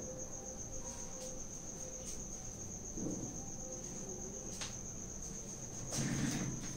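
A cricket trilling steadily in a high, finely pulsing tone. Soft rustling noises come about three seconds in and again, a little louder, around six seconds.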